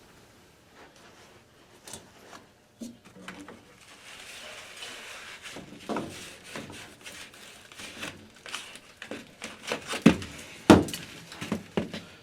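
An old furnace air filter being pulled out of its slot: cardboard and sheet metal rustling and scraping, with a string of clicks and knocks. Two sharp knocks near the end are the loudest.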